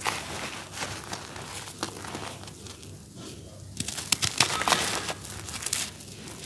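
Hands raking, crumbling and sifting dry, grainy charcoal powder and pressed cakes: a gritty rustling with crisp crackles. It eases off a little before the middle, then a quick cluster of sharp crackles is the loudest part.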